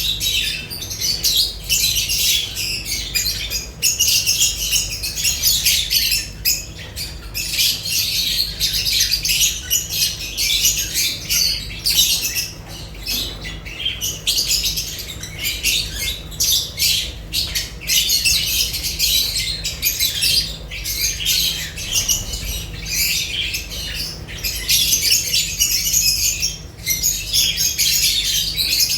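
Lovebirds chattering: a continuous, dense stream of shrill, high chirps and squawks.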